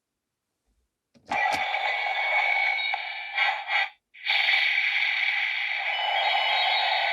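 Kamen Rider transformation toy clicking as an item is set, then its small built-in speaker playing loud electronic sound effects. The sound cuts out briefly about four seconds in and starts again.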